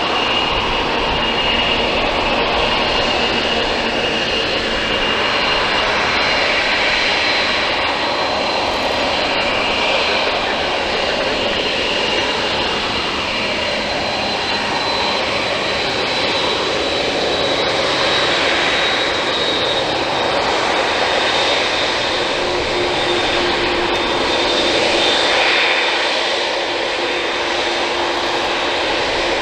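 Jet airliner's turbofan engines running steadily, with high whining tones that drift slowly in pitch.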